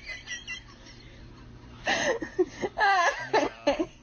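A person's voice laughing and exclaiming, with a short lull before it comes back strongly about two seconds in.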